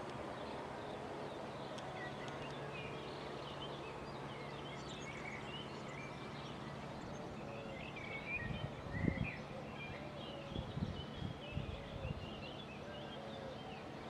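Outdoor ambience of small birds chirping over a faint steady hum, with a few low bumps of wind on the microphone in the second half.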